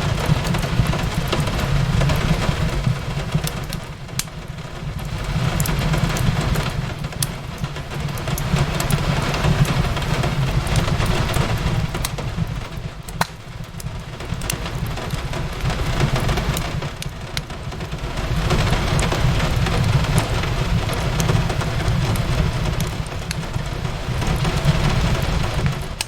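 Rain falling on a window mixed with a fireplace crackling: a steady rain hiss that swells and eases every few seconds over a low rumble, with scattered sharp crackles throughout.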